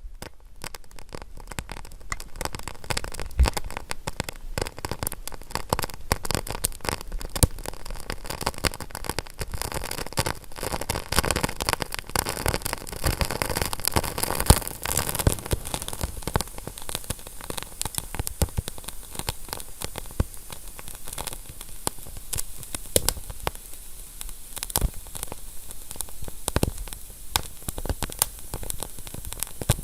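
Wood fire burning in a stove, crackling and popping with many sharp, irregular snaps over a steady hiss.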